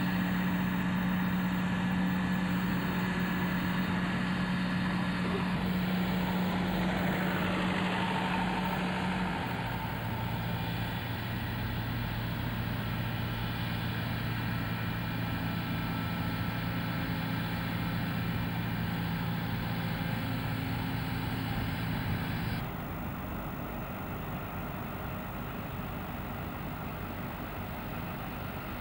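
Heavy diesel engines of mobile cranes running steadily under load, with the engine note stepping down lower about a third of the way in. The sound changes abruptly and gets quieter near the end.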